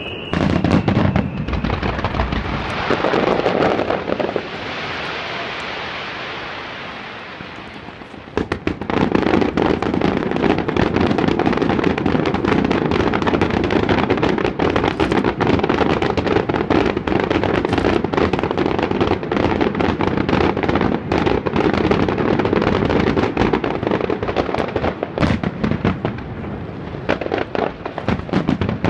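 Fireworks barrage from a digital starmine: shells fired in rapid, computer-timed succession, dense bangs and crackle. Around four seconds in the bangs thin out to a fading hiss, then about eight seconds in a nonstop rapid barrage takes over.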